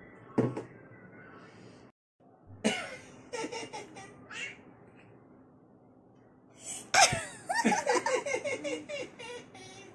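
Toddler laughing in short bursts, with a longer peal of quick repeated laughs starting suddenly about seven seconds in.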